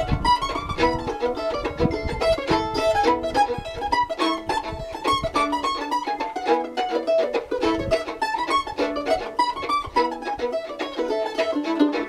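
Acoustic mandolin and fiddle playing an instrumental tune together: the mandolin picks quick notes while the fiddle is bowed.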